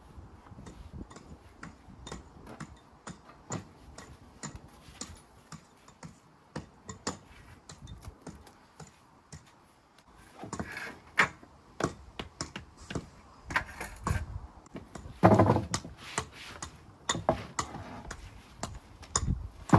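Irregular light taps and clicks of stone and tools during stone walling, with louder clusters of knocks about ten and fifteen seconds in.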